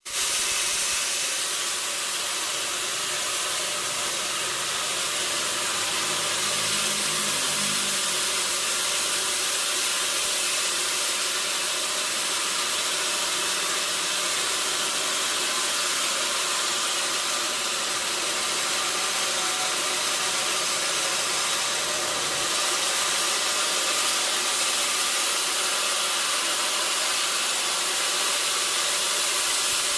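Sawmill machinery running steadily, a constant high-pitched noise with little bass.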